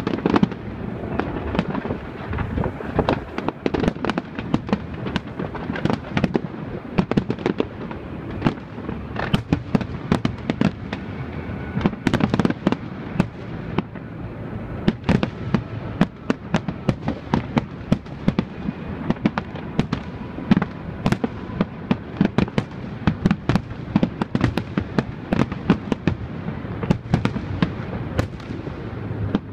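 Aerial fireworks display: a continuous barrage of shell bursts, many sharp bangs and cracks in quick succession, several a second, over a steady low din.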